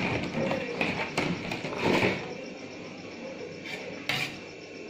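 Kitchen handling noise around a stainless steel mixing bowl of raw chicken pieces: irregular clicks and knocks, busiest in the first two seconds, then quieter, with one sharp knock a little after four seconds.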